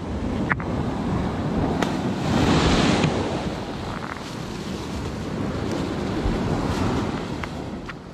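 Wind buffeting the microphone over surf washing on a rocky shore, swelling about two to three seconds in, with a couple of faint clicks.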